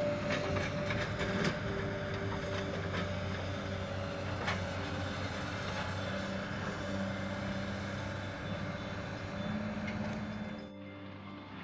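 Hyundai tracked excavator demolishing a building: its diesel engine running steadily under metallic clanks and crashes of breaking debris, sharpest in the first few seconds. The sound drops and changes abruptly near the end.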